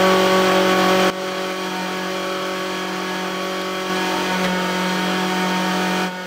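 External electric fuel pump running with a loud, steady whine at one constant pitch. It drops in level about a second in and rises again near four seconds.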